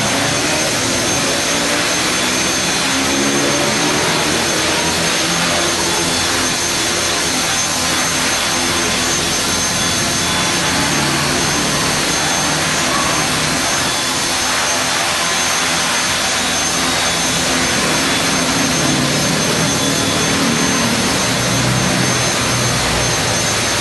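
HK450GT Pro 450-size flybarless electric RC helicopter hovering: a steady high whine from the motor and drive over the rotor blades' whoosh, the rotor note wandering a little in pitch as it holds the hover.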